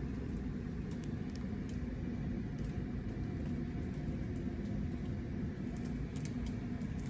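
Steady low rumble with faint light clicks and taps scattered through it.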